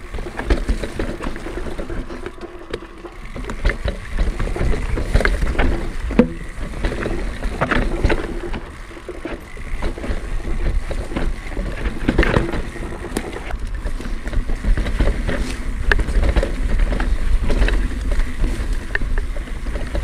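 Pivot Switchblade full-suspension mountain bike riding fast over a stony singletrack: a steady low rumble of tyres rolling on rock and dirt, with frequent rattles and knocks as the wheels hit stones.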